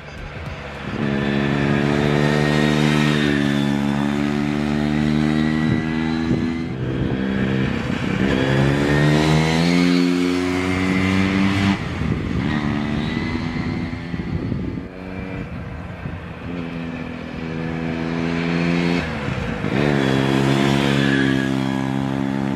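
Hercules W2000's air-cooled 294 cc single-rotor Wankel engine running on the road, its note climbing with the revs and dropping back several times, with steady stretches in between.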